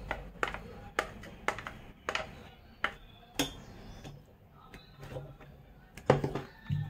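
Stainless-steel mixer-grinder jar clicking and knocking against its plastic base as it is handled: sharp clicks about two a second for the first few seconds, then a louder clatter near the end.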